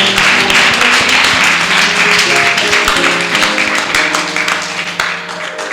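Congregation applauding over held chords of background church music; the clapping dies away near the end.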